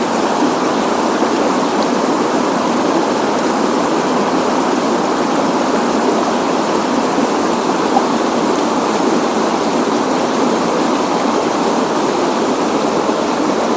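Small river's water rushing over a shallow riffle, a steady, loud flowing noise.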